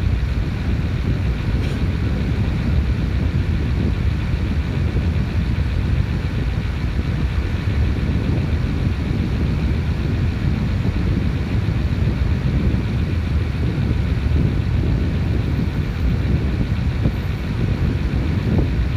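Strong wind buffeting the microphone: a steady, dense low rumble with no let-up.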